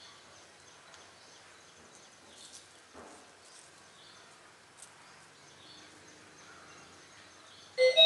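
Faint background noise with a few faint, high bird chirps and a light click about three seconds in. Right at the end, loud voices and music cut in.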